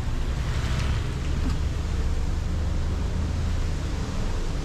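A car driving on wet streets, heard from a camera on its hood: steady low wind rumble on the microphone over tyre and road hiss, the hiss swelling briefly about half a second in.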